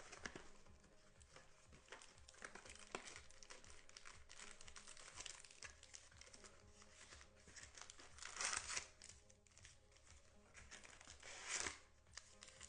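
Trading-card packaging wrapper crinkling and tearing as a card box is opened by hand, with two louder rips near the end.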